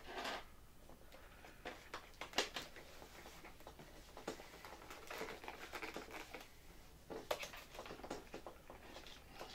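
Hand-work noises from metal tweezers and a foam RC glider's wing and fuselage: scattered light clicks and taps over faint rustling and scraping, the sharpest click about two seconds in and a pair near the end.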